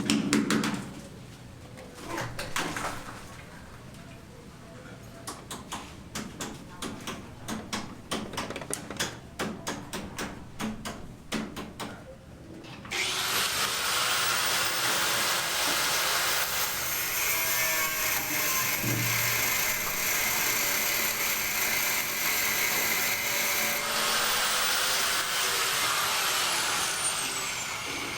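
A run of sharp knocks, about two a second, for the first dozen seconds. Then a power tool starts about halfway through and runs steadily and loudly for the rest.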